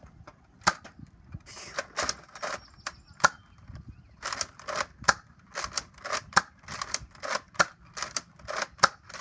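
Nerf dart blaster firing darts one after another, each shot a sharp pop: a few spaced shots at first, then a quick run of about two to three a second through the second half.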